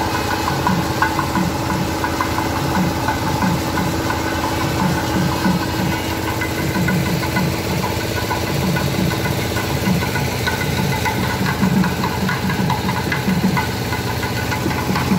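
Diesel engine of a VST Shakti MT 270 compact tractor, running steadily at idle with an even knocking beat.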